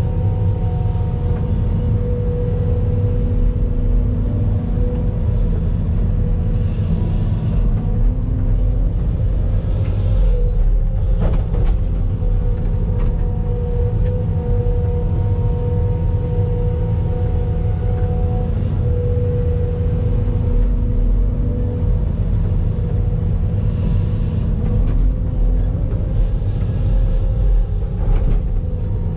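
Hydraulic excavator's diesel engine and hydraulics working under load, heard from inside the operator's cab: a steady, loud, low rumble with a steady whine over it as the boom and bucket dig and swing.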